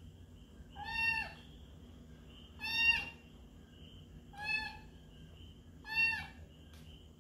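Kitten meowing four times: short, high-pitched meows about a second and a half apart, each dropping in pitch at the end.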